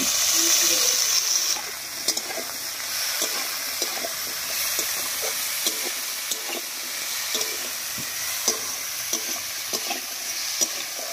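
Diced potato, carrot and tomato sizzling in hot mustard oil in a kadai, loudest for the first second or so as the tomatoes go in. A long metal spatula then stirs the vegetables, scraping and clicking against the pan over a steadier sizzle.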